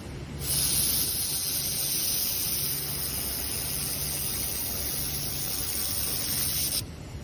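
Handheld laser welding gun firing on stainless steel: a steady hiss that starts suddenly about half a second in and cuts off shortly before the end, leaving a low hum.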